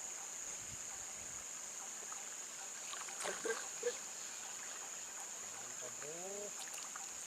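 Steady high-pitched drone of insects in the forest, with a few faint ticks a few seconds in and a short curving call near the end.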